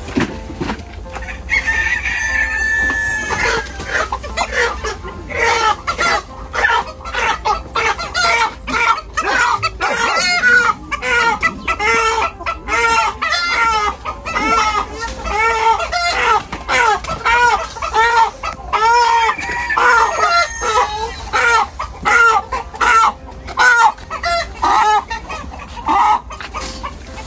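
Chickens squawking and clucking in a fast, continuous string of short calls, about two or three a second, with one longer high call about two seconds in. Such agitated squawking is typical of chickens disturbed as one is caught and carried by its legs.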